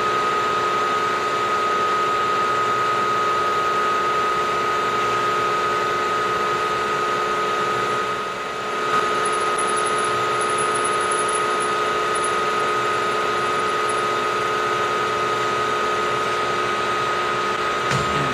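Benchtop milling machine's spindle running steadily with a constant whine, a drill-chuck tool working a hole in a metal block. A brief dip in level comes about eight seconds in, with a small click just after.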